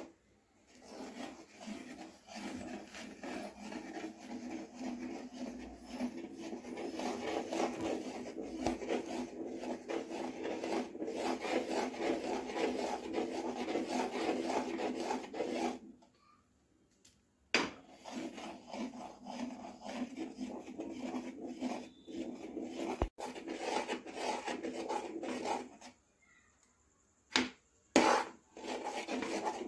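Steel slotted spoon stirring thick pineapple jam in a pan, scraping and rubbing in rapid strokes. It stops briefly about halfway and then starts again, with a few sharp knocks of the spoon later on.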